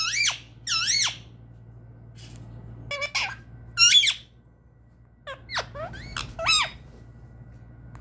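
Indian ringneck parakeet calling: a series of short, high, squeaky notes, each bending up and down in pitch, mostly coming in pairs with gaps between them.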